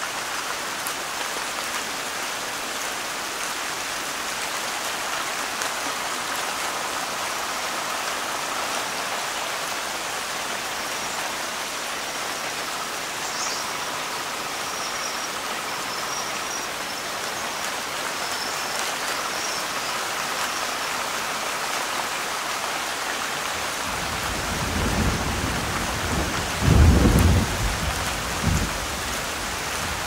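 Steady downpour of rain on jungle foliage and a pool's surface. Near the end a low rumble of thunder swells and peaks, then fades back into the rain.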